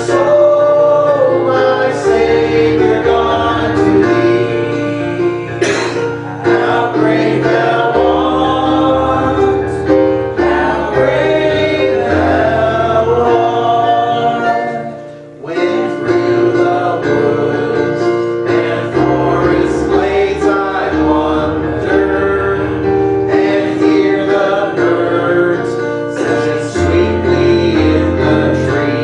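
Church congregation singing a hymn together, men and women, with keyboard accompaniment, and a brief pause between phrases about halfway through.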